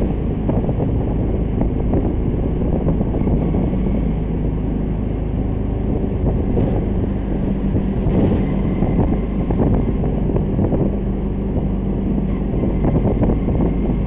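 Road vehicle driving along a city street, heard from inside with the window open: a steady engine and tyre rumble with wind buffeting the microphone.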